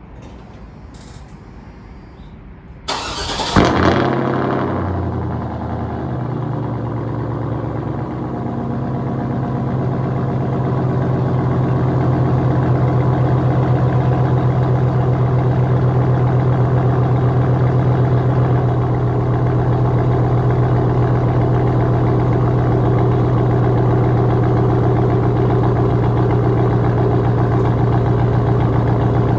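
Straight-piped 2004 GMC Yukon V8 cold-starting: a brief crank about three seconds in and a loud flare as it catches. It then settles into a loud, steady idle with a low drone, growing a little louder over the next several seconds before holding steady.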